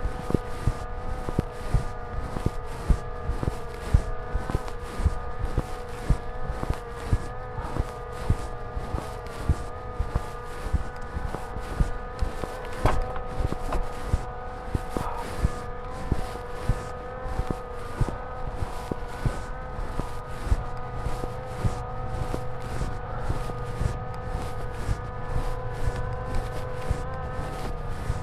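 A camera drone's propellers whining steadily with a slight waver, over constant irregular knocks and rattles of a mountain bike riding rough trail.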